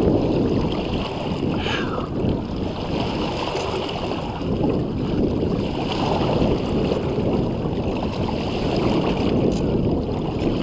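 Water splashing and rushing around a large bull redfish held at the surface beside a boat while it is revived, with wind rumbling on the microphone.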